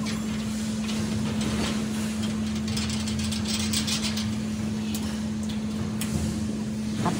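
A steady machine hum with background workshop noise. Over it come a few small metallic clicks and rattles, clustered about three to four seconds in, as a steel bolt and nut are slid along and set into the slot of an aluminium-alloy rail.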